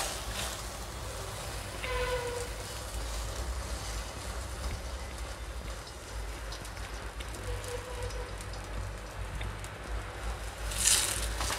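Stuffed potato paratha frying in butter on a hot tawa: a steady sizzle, with a brief louder burst of hiss near the end.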